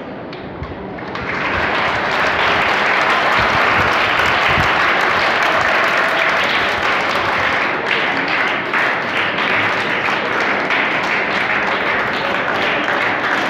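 Audience applauding with sustained clapping that swells about a second in and carries on.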